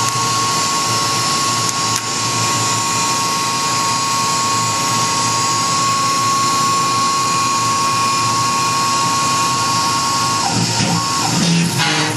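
Tormach PCNC 1100 CNC mill spindle running with a steady high whine as the end mill moves over the metal fixture plate. Near the end the whine breaks off and the sound changes as the tool meets the plate under coolant spray.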